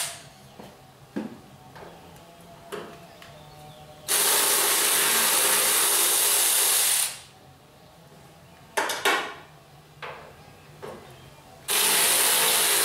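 A handheld power driver runs steadily for about three seconds, backing out a bolt that holds the parking brake assembly to the firewall, then starts again near the end. Short clicks and knocks come between the two runs.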